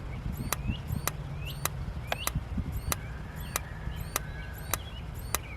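Dometic RV refrigerator's electronic igniter ticking at the gas burner, sharp clicks about twice a second. It is sparking but not lighting yet, as air is still being purged from the gas line.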